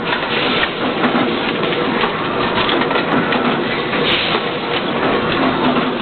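Steady machinery noise in a forging shop, with a faint steady hum running through it and short, louder rushes of noise about half a second in and about four seconds in.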